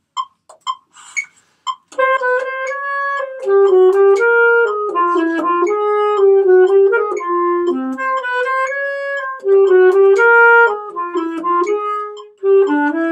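A metronome clicking about twice a second, marking the eighth-note subdivision in three. About two seconds in, an alto saxophone comes in with a slow, legato etude melody played in time with the clicks.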